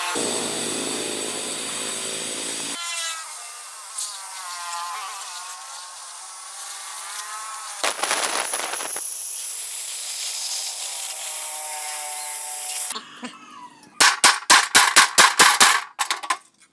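Gas cutting torch hissing steadily as it cuts a circle through steel plate, with a whistling tone that wavers. Near the end comes a rapid run of about ten sharp metallic knocks.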